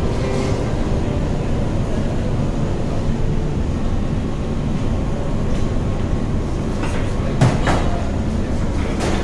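Steady, loud low rumble with a few sharp clicks near the end.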